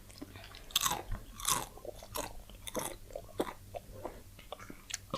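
Crunchy food being bitten and chewed close to the microphone, a run of short crisp crunches every half second or so.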